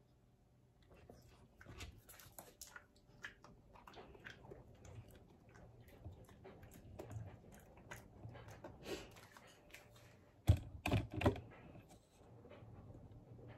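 Small dog chewing a treat: a scatter of light crunching clicks, with three sharper knocks about ten and a half seconds in.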